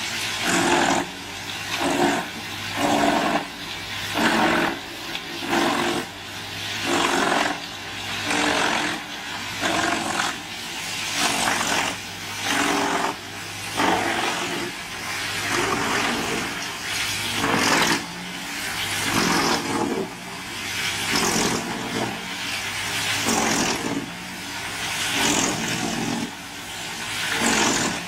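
Large wood chipper running under load: a steady engine note with loud bursts about once a second as wood is fed into it.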